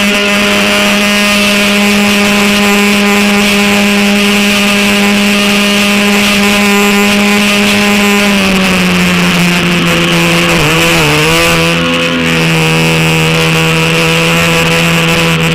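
Motor of a small model boat running hard at speed, a steady high hum that drops slightly in pitch about eight seconds in, wavers briefly around eleven seconds and climbs again near the end. Water rushes and sprays close by.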